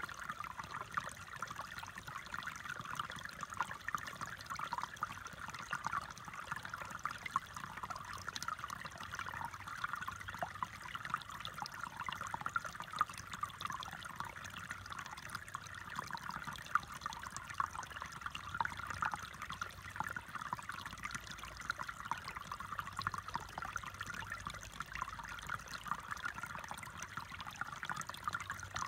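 Shallow, rocky creek trickling steadily as its water runs over stones and a log.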